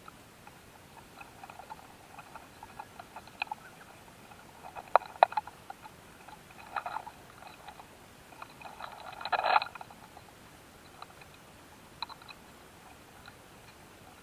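Close-miked ticks, scratches and crackles from a mating pair of quail stink bugs (Aelia fieberi) on a grass ear: scattered faint ticking, two sharp clicks about five seconds in, and a longer crackling scratch just past nine seconds.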